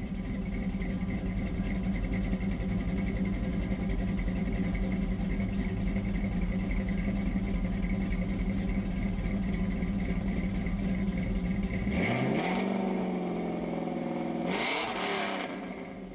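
Car engine idling steadily, then revved twice near the end, the pitch rising with each blip of the throttle.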